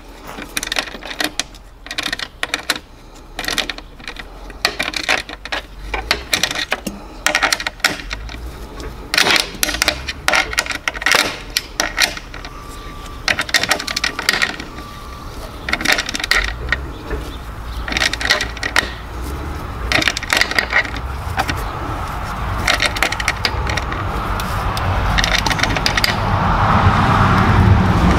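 Hand ratchet clicking in quick runs of strokes as it tightens the 10 mm bolts holding a motorcycle's license plate frame from behind the rear fender. A low rumble builds over the last few seconds.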